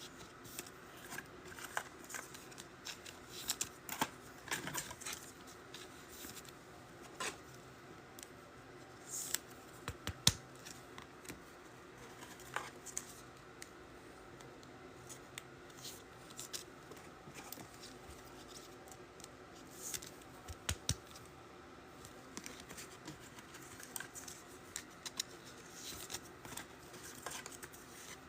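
Faint, scattered scratches, clicks and rustles from handling trading cards and their packs and packaging on a table.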